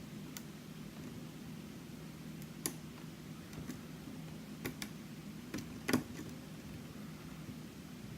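Faint, scattered clicks of a lock pick working the pins of a custom pin-tumbler challenge lock, about half a dozen over several seconds, with a steady low hum underneath.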